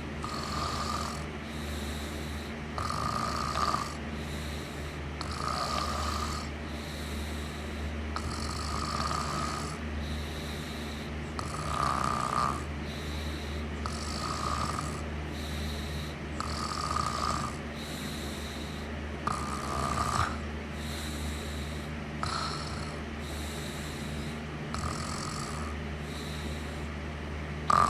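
Steady, regular snoring, one snore about every two and a half to three seconds, over a constant low hum.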